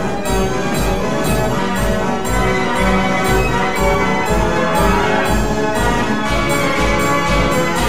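Wurlitzer 165 band organ playing a march from its paper music roll. Brass trumpet and trombone pipes carry the tune over a steady bass beat of about two pulses a second.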